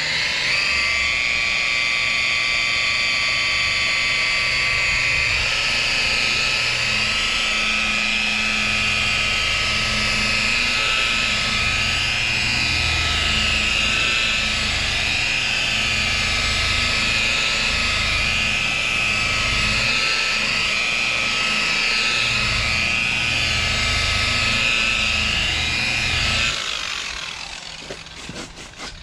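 DeWalt rotary polisher with a wool pad running steadily while cutting compound on car paint, its whine wavering slightly in pitch under load. Near the end it is switched off and spins down.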